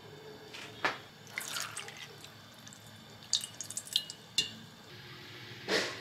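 Brine dripping and wet peeled chili peppers dropping into a stainless steel bowl: scattered drips and soft plops, a few of them leaving short metallic pings from the bowl. There is a brief louder noise near the end.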